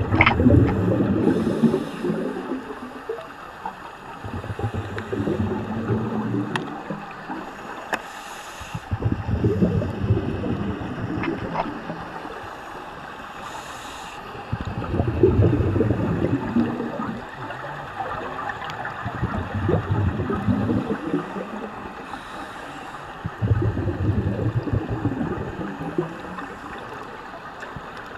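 Scuba regulator exhaust bubbles, heard underwater: a low bubbling rumble of about two seconds with each exhalation, recurring every four to five seconds, with quieter stretches between breaths.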